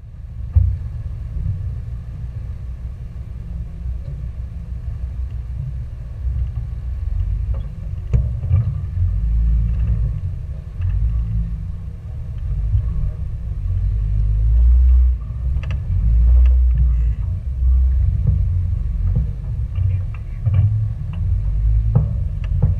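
Low rumble of a Jeep Wrangler JK's engine and drivetrain crawling over rock, picked up through a hood-mounted camera, swelling and easing several times with a few sharp knocks.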